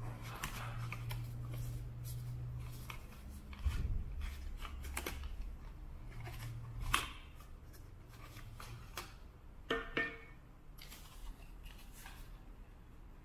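Thin printed cardboard packaging rustling and scraping as it is slid off and unfolded by hand, with scattered light clicks and knocks from handling the small wooden crate and shakers. A faint low hum sits underneath in the first half.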